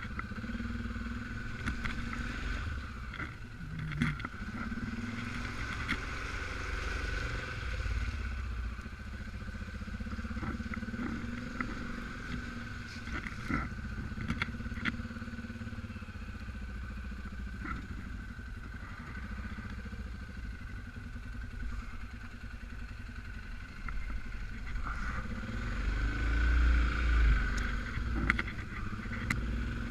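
Suzuki KingQuad 750 AXI quad's single-cylinder engine running at low, steady revs while riding off-road, with scattered knocks and clatter. The engine grows louder for a couple of seconds near the end.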